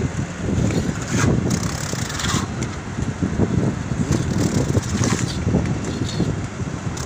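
Wet cement mortar being slapped and pressed by gloved hands onto steel wire mesh inside a large steel pipe, with a few short scraping slaps. Under it runs a steady low rumble.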